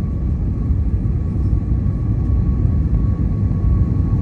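Steady cabin noise of an Airbus A320neo airliner on approach: a low, even rumble of airflow and engines, with a faint steady whine above it.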